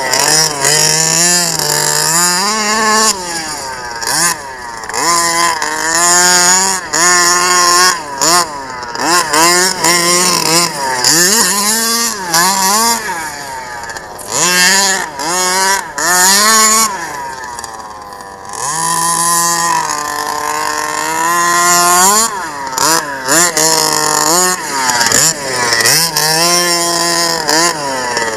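Small two-stroke petrol engine of a 1/5-scale King Motor T1000 RC truck, revving up and falling back over and over as the throttle is worked, with short drops toward idle between bursts.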